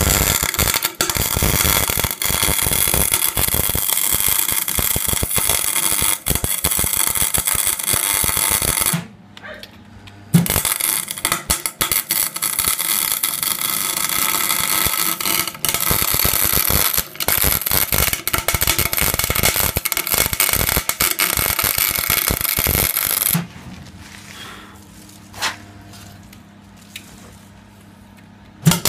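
Electric arc welding crackling and sputtering as the spider gears inside a differential are welded solid. It runs in two long stretches with a short break about nine seconds in and a longer pause from about 23 seconds; the arc strikes up again at the very end.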